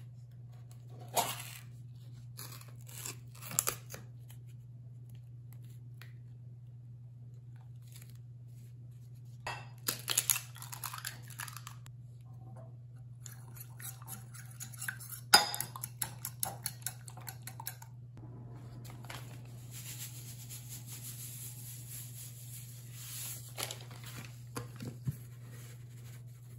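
Eggs cracked against and into a ceramic bowl, then beaten with a fork in quick rapid clinks against the bowl; near the end a pepper grinder grinds over the bowl with a steady rasp. A steady low hum runs underneath.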